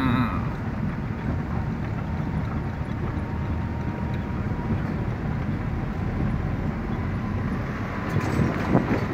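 A car driving slowly on a paved road, heard from inside the cabin: a steady low rumble of engine and tyres. A few knocks come near the end.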